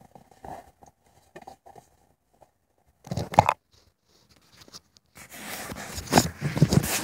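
Handling noise: scattered faint clicks, then a hand rubbing and scraping over the recording phone's microphone, louder and denser near the end.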